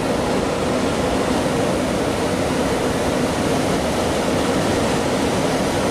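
Furnace blower fan running steadily at high speed, a loud, even whoosh of moving air with a faint hum: the sign that the blower is working again on the new control circuit board.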